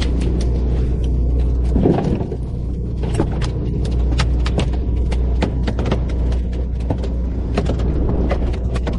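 Steady low rumble of the fishing boat's engine, with frequent irregular sharp clicks and knocks over it. About two seconds in there is a louder rushing burst, and the rumble briefly dips.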